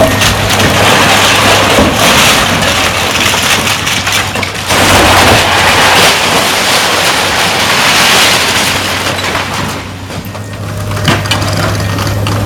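Hydraulic demolition excavator pulling down old half-timbered buildings: crashing and splintering of collapsing timber, brick and rubble in loud swells, over a steady engine hum. The crashing eases off about ten seconds in, then builds again.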